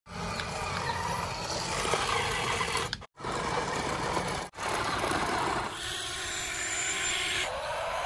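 Steady mechanical vehicle noise in short cut-together pieces, broken by two brief dropouts about three and four and a half seconds in, with a whine coming in near the end.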